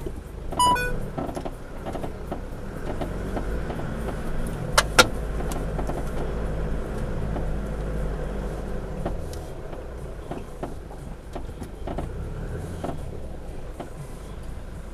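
Four-wheel-drive engine running at a slow crawl, louder for several seconds in the middle and then easing off, with scattered clicks and knocks. A short electronic beep sounds about a second in.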